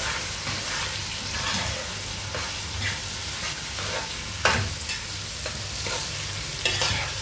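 Chopped tomatoes and onions sizzling in hot oil in a metal pot, stirred with a spoon that scrapes round the pot, with a sharp knock about halfway through.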